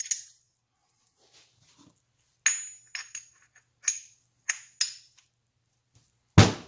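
Metal engine parts clinking as they are handled and set down: a handful of light clinks with a brief metallic ring, then one much louder, heavier knock near the end.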